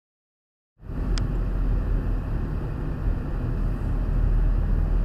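Silence for most of the first second, then steady road and engine rumble of a car cruising on the highway, with one short high tick just after the sound cuts in.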